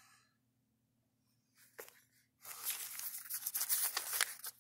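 Paper pages of a small booklet rustling as they are flipped over by hand, starting about halfway in.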